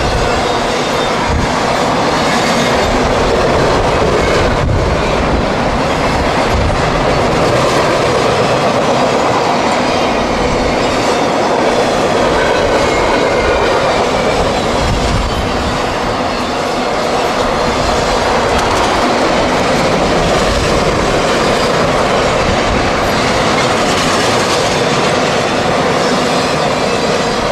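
CSX intermodal freight train passing close by: loud, steady noise of its wheels running over the rails, with no horn.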